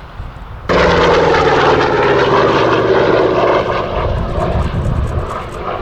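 P-47D Thunderbolt's Pratt & Whitney R-2800 radial engine passing in a low flypast. It comes in suddenly about a second in, its pitch falling slowly as it goes by, then fades over the last couple of seconds.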